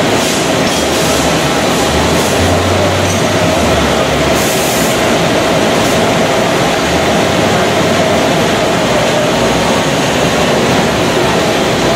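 Steel coil processing line running, with the strip unwinding steadily off a turning coil: a loud, even machinery noise with a steady tone through it and an irregular low rumble. A brief hiss rises over it about four and a half seconds in.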